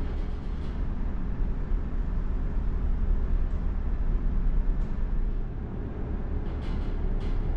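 Steady low rumble of a large ferry's engines and hull vibration heard from inside the ship, with a few faint light clicks.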